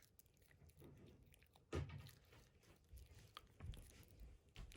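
Shiba Inu puppy chewing and mouthing a piece of banana: faint, scattered wet smacks and mouth clicks, with a louder smack about two seconds in.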